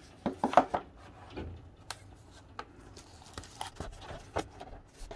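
Hands handling a rigid cardboard gift box and lifting out its inner tray: a brief squeak near the start, then scattered light clicks, taps and rustles of cardboard and packaging.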